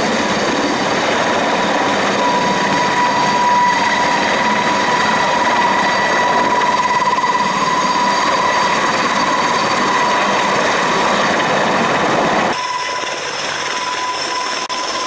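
Mi-26 heavy helicopter running loud and steady, its two turboshaft engines giving a high, steady whine over the roar. About 12.5 s in the sound changes abruptly and becomes thinner in the low end.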